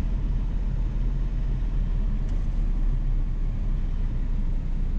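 Car engine and road noise heard from inside the cabin while driving: a steady low drone with no breaks.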